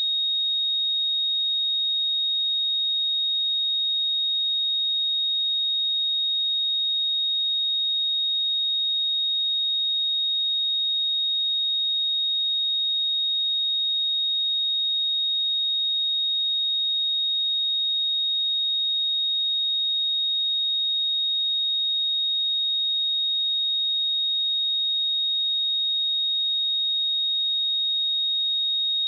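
A pure 3741 Hz sine-wave test tone, held steady at one pitch and level: a constant high-pitched beep.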